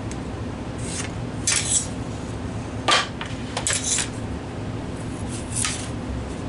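Several short, light clinks and knocks of hand tools being picked up and set down on a workbench while boards are measured and marked. A steady low hum runs underneath.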